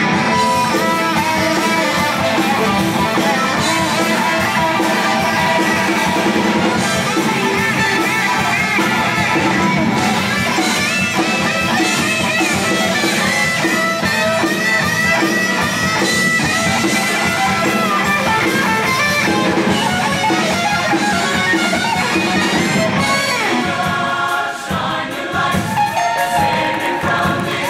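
Show choir singing a song with a live band accompanying on guitar and drums. The music dips briefly near the end before picking up again.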